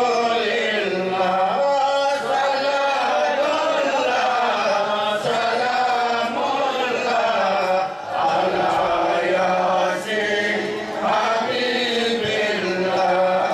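A man's voice chanting a melodic devotional recitation into a microphone, in long held notes with brief pauses for breath.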